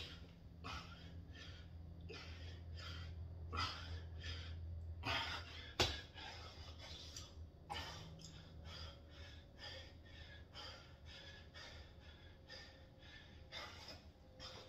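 A man breathing hard from exercise: quick, rhythmic breaths, a few a second, with one sharp knock about six seconds in.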